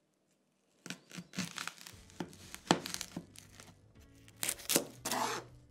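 A kitchen knife trims and peels a dry-skinned yellow onion, and the papery skin crackles and tears in irregular sharp bursts. These start about a second in, with the loudest crack a little under three seconds in. Quiet background music plays under it.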